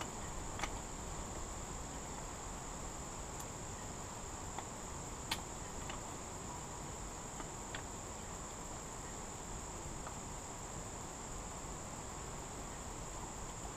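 Steady high-pitched chorus of insects. Over it come a few faint clicks from small engine parts being handled, the sharpest about five seconds in.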